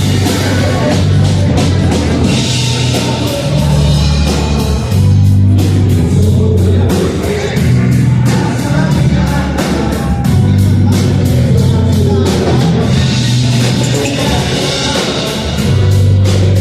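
Rock song with singing, electric guitar, bass and drums with a steady beat, played back over Tannoy Gold 8 studio monitor speakers.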